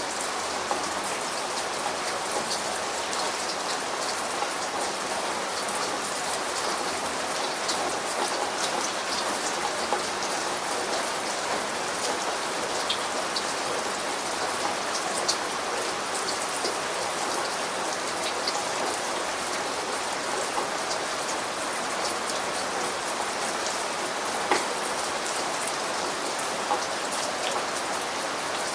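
Steady rainfall: an even hiss of rain with many individual drops pattering on a surface.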